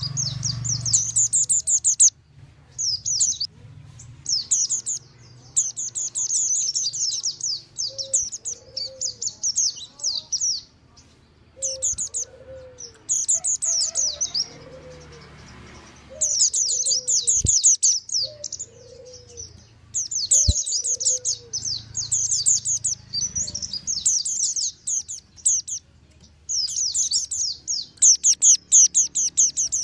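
Mountain white-eye (pleci montanus) song: bursts of rapid, high twittering chatter, each one to three seconds long, repeated about a dozen times with short pauses. It is a busy lure recording of the kind used to draw in wild white-eyes and prompt kept birds to open their beaks and sing.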